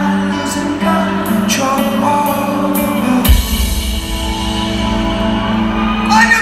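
Indie rock band playing live, with a singer's voice over the band. About three seconds in, the drums and bass come in hard with a cymbal crash and the full band plays on.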